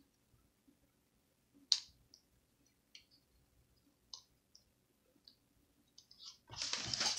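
Small scattered clicks and taps of fingers working the thin display cable plug onto the back of a replacement laptop screen, with one sharper click about two seconds in and a longer, louder rustling scrape near the end.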